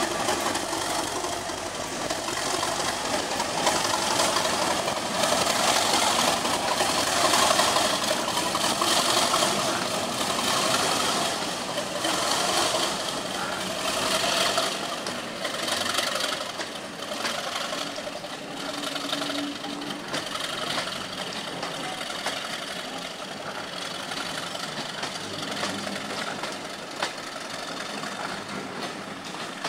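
Class 37 diesel locomotive's English Electric 12CSVT V12 engine working under power as it pulls a passenger train away. It is loudest in the first dozen seconds, then eases off as the coaches roll past.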